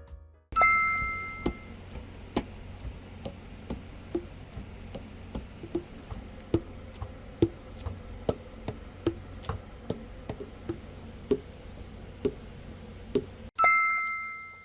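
Selmer Mark VI tenor saxophone keys being tapped shut one after another, each pad clicking onto its tone hole with a short pop whose pitch changes from key to key, about one or two a second over a low hum. A two-tone chime rings once near the start and once near the end.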